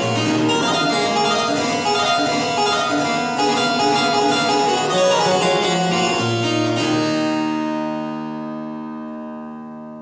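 Georg Ranftl harpsichord playing a fast, ornamented passage, then a final chord struck about seven seconds in, left ringing and slowly fading.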